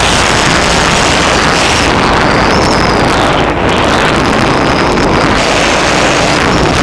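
KTM LC8 V-twin motorcycle engine running off-road, heavily buried under steady wind buffeting on the microphone.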